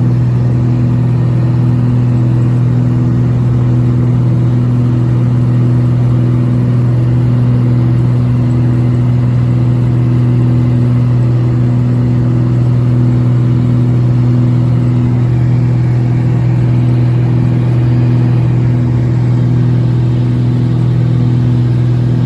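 Engines of a small eight-seat passenger plane droning steadily in flight, heard inside the cabin, with a slow regular pulsing in the tone.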